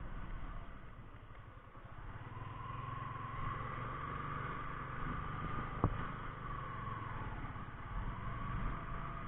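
Motorcycle engine and road noise from the moving bike, dropping about a second in and then building again, with a whine that rises and falls as the speed changes. A single sharp click comes about six seconds in.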